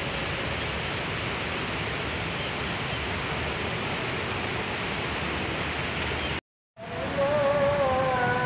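Steady rushing of river water that cuts off abruptly about six and a half seconds in. After a moment of silence, a wavering melody starts near the end.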